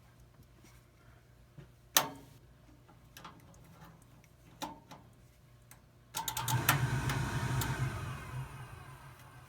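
Oil furnace burner starting up: after a sharp click about two seconds in, the motor and flame come on suddenly about six seconds in with a strong electrical hum and a rush of air, then ease off. It starts as soon as the thermostat terminals R and W are jumped at the furnace, which points to the thermostat not sending the call for heat.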